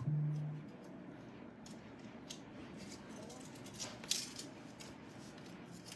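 Gold bangles and rings clinking faintly against each other as they are handled, in a few light metallic clicks, with a small cluster around four seconds in.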